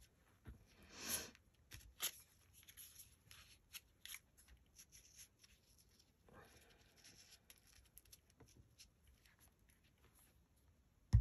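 Faint rustling and soft taps of paper pieces being handled and pressed down onto a paper board, ending in a single thump.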